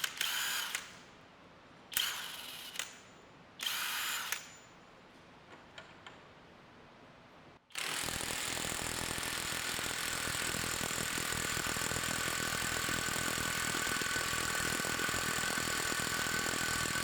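Cordless mid-torque impact wrench hammering in reverse on a test fastener: three short bursts of under a second each, then from about eight seconds in a steady ten-second run of rapid hammering at full power.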